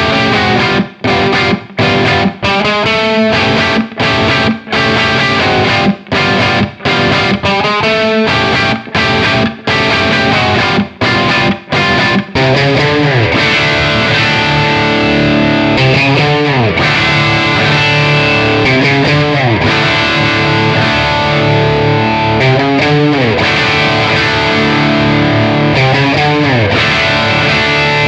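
Gibson Les Paul electric guitar with PAF-style humbuckers played through an overdriven amp. It opens with short, chopped chords separated by brief gaps, then about twelve seconds in moves to sustained, ringing playing with repeated string bends.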